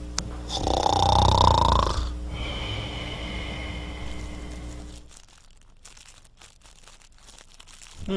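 Snoring for a sleeping cartoon dog. One long, loud snore with a slowly rising tone comes about a second in, over a steady hum. The snoring stops about five seconds in, leaving faint crackling.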